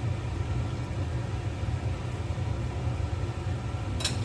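Steady low rumble, with one sharp click near the end.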